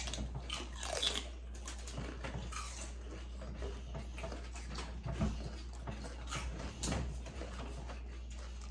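Several people chewing and crunching raw celery stalks, with quiet, scattered crunches over a steady low hum.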